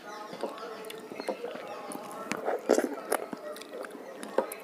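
Close-up eating sounds of raw green mango chutney eaten with the fingers: wet lip smacks, sucking and chewing, with a cluster of sharper smacks about two to three seconds in.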